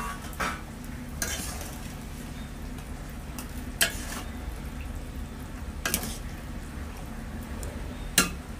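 Metal spatula stirring fish curry in an aluminium kadai, scraping and knocking against the pan in about six sharp strokes, the loudest at the start and near the end, while the curry sizzles steadily underneath.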